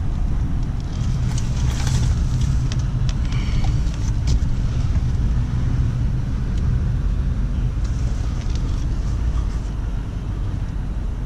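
Duramax L5P 6.6-litre turbodiesel V8 of a 2019 Chevrolet pickup running at low speed, a steady low rumble heard from inside the cab, with a few faint light clicks over it.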